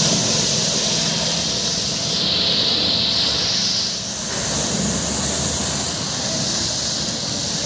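High-pressure water jet blasting the inside of an aluminium engine oil sump: a loud, steady spray hiss with a low hum underneath, easing briefly about four seconds in as the jet swings off the pan.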